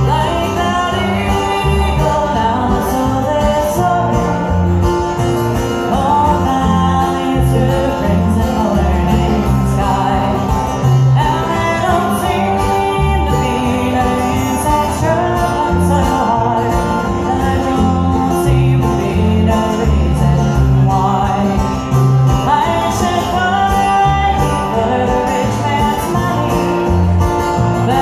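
Bluegrass band playing live: a woman singing over plucked banjo, strummed acoustic guitar and upright bass.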